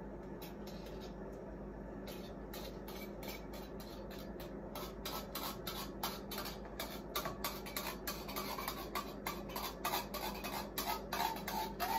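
A hand-held can opener cranking around the lid of a metal can: a run of short metallic clicks, about three a second, getting louder about halfway through.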